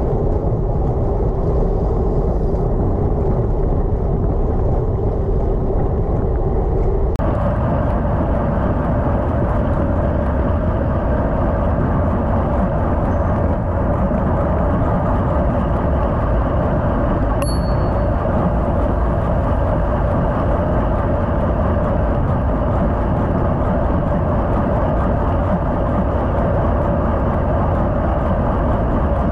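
Wind and road noise on a GoPro riding on a moving road bike: a loud, steady rush that changes tone suddenly about seven seconds in.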